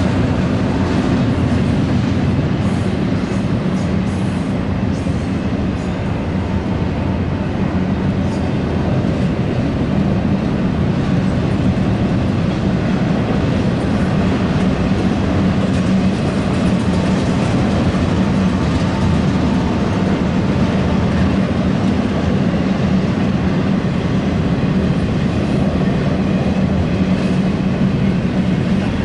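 Freight train of double-stack intermodal well cars rolling past steadily at close range, its steel wheels running on the rails in an unbroken rumble.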